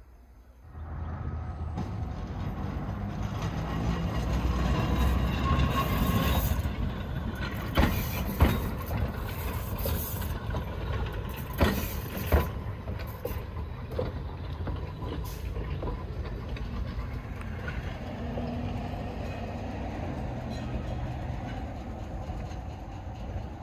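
Vintage electric railcar running on track: a steady low rumble with several sharp clanks, two about 8 seconds in and two about 12 seconds in, and stretches of hiss.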